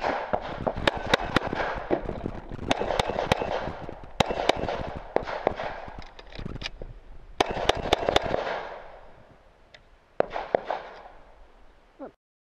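Semi-automatic pistol fired in quick strings of two to four shots with short pauses between, the last few shots about ten seconds in.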